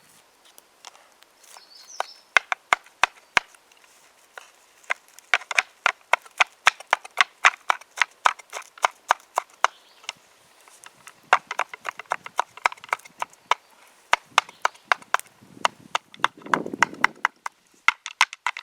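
A small flat steel card-knife chopping food against a board in quick runs of sharp knocks, several a second, with short pauses between runs.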